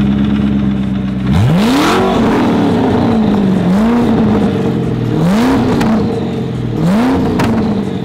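Twin-turbocharged Ford GT V8 idling, then revved four times while standing still. The first rev, about a second in, is the highest; each one rises sharply and falls back toward idle.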